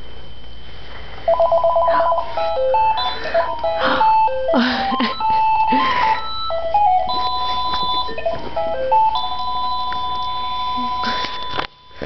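Cordless phone handset playing electronic tones: a warbling ring trill, then a string of short beeps at changing pitches and a few longer held tones, as a toddler presses its buttons. The toddler babbles briefly in between.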